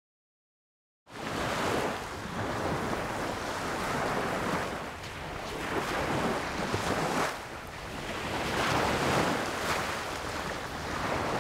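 Ocean surf washing in on a beach, starting after about a second of silence and swelling and ebbing every second or two.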